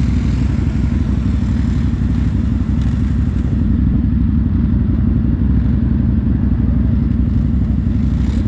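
Quad (ATV) engine running steadily at low throttle, a dense low rumble with no clear revving.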